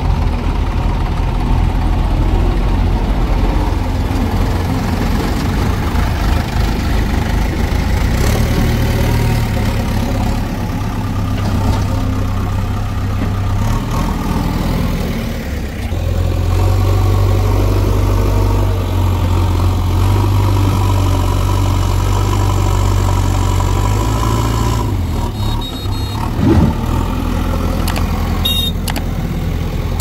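Diesel engines of a backhoe loader and tractors running, the rumble rising and falling in level as the machines work. A brief knock comes about three quarters of the way through.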